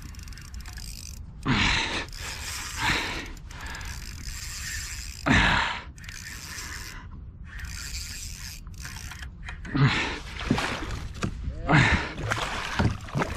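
Spinning reel winding in line as a snapper is played up to the kayak. Several louder short sounds break in over it, a few seconds apart.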